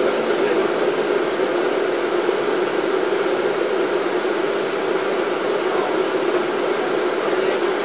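Steady engine and road noise of an airport shuttle bus heard from inside while it rides along, an even hum with a strong low drone and no distinct events.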